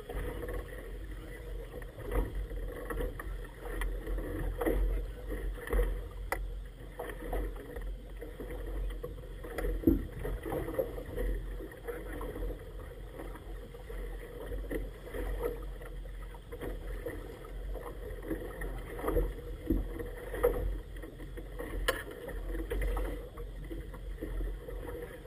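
Small boat under way through choppy water: a steady low rumble and wash, with irregular slaps and splashes of water against the hull.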